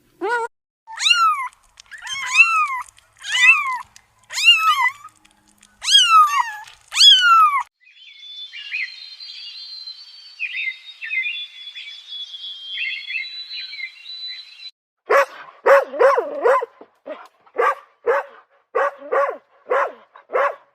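A series of animal calls. First about seven short, high cries that rise and fall in pitch, the meowing of a cat. Then several seconds of fainter high-pitched chirping, and then a small dog barking rapidly, about two barks a second.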